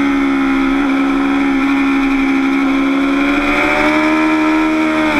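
Motorcycle engine pulling hard at high revs, heard from a camera mounted on the bike, holding a steady pitch through a corner and then climbing gently as the throttle comes on.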